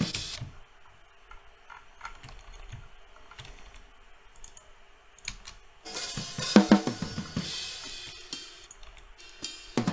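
Recorded drum kit playing back in short stretches: a snare hit at the start, about five quieter seconds with only faint clicks, then snare hits with ringing cymbals from about six seconds in and again near the end.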